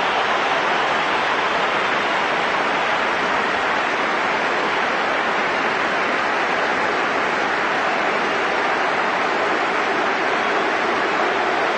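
A large stadium crowd giving a standing ovation: dense, steady applause that does not let up.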